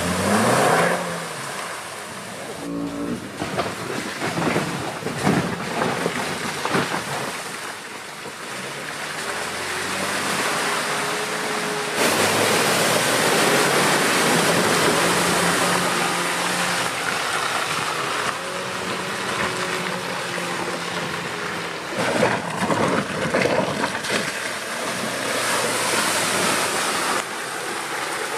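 Land Rover Defender P300's engine pulling the SUV through a flooded, muddy track, its note rising and falling, with a steady wash of water and mud splashing from the tyres. The sound changes abruptly a couple of times.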